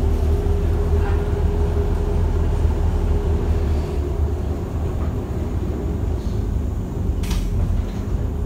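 Daimler Fleetline double-decker bus on the move, heard from inside the lower saloon: a loud, steady low engine drone with a steady higher hum over it. A brief sharp rattle comes about seven seconds in.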